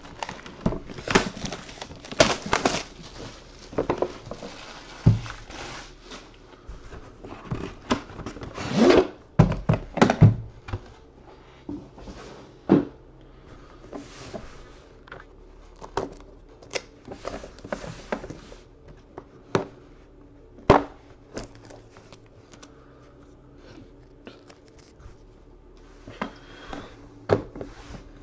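Plastic shrink-wrap being torn and crinkled off a sealed trading-card box, the cardboard outer box sliding off, then a metal briefcase being handled, with scattered knocks and thunks. The tearing and crinkling are densest in the first ten seconds or so; the later knocks come more sparsely.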